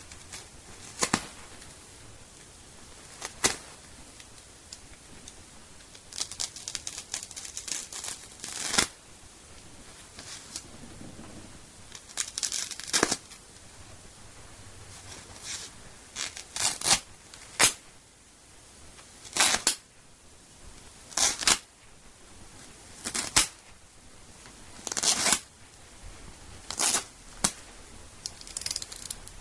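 Nylon shell of an MA-1 flight jacket being slit and ripped with a utility knife: a series of short, sharp tearing rasps every one to three seconds, with a longer run of rips about six to nine seconds in.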